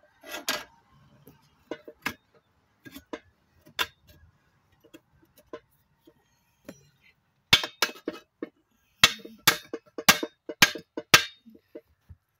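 Steel split lock ring and split rim clinking under a tire iron as the ring is pried and tapped into the rim's gutter: scattered metallic clinks, then a quicker run of loud strikes in the second half.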